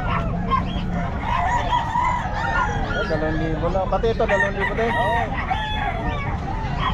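Several gamecocks crowing and clucking, their calls overlapping at different pitches and thickest around the middle, over a steady low background rumble.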